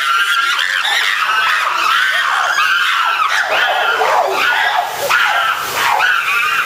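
A troop of chimpanzees screaming during a fight, many high-pitched shrieks overlapping without pause, each rising and falling in pitch.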